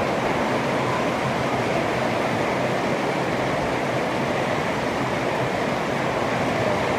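Heavy rain pouring down steadily onto a brick-paved yard and garden plants.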